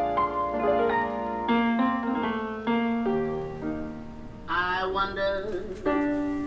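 Music: a piano or electric piano playing a slow run of single held notes. A wordless voice-like line comes in briefly about two-thirds of the way through.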